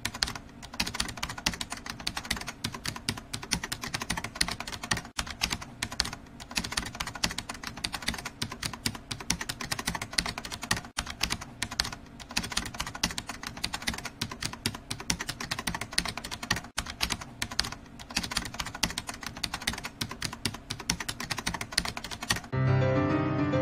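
Fast computer-keyboard typing, a dense unbroken run of key clicks. Piano music comes in suddenly about a second before the end and is louder than the typing.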